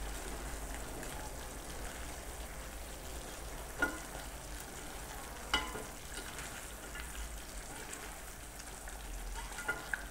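Beef in a spiced tomato sauce sizzling in a granite-coated pot while a spatula stirs it, a steady sizzle with a light scraping. There are two sharp knocks, about four and five and a half seconds in.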